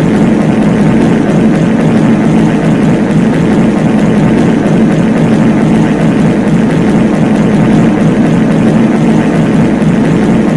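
Many reverberant fart sound effects layered on top of one another, merging into one loud, steady low drone with no breaks between them.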